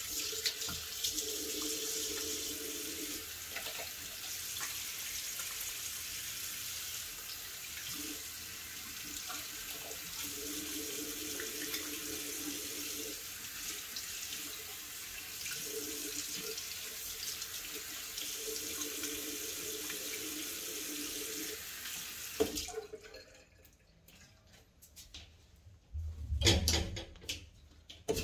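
Tap water running steadily into a bathroom sink as a face is washed. The flow stops abruptly about 22 seconds in, and a couple of loud knocks follow near the end.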